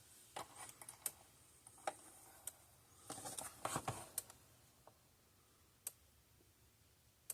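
Irregular faint clicks and light knocks, bunched about three to four seconds in, as a fence energizer load tester's setting is switched to 100 ohms and the test gear is handled.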